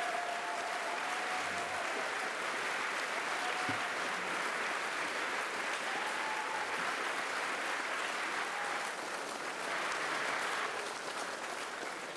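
Large audience applauding steadily, dense clapping that begins to die away near the end.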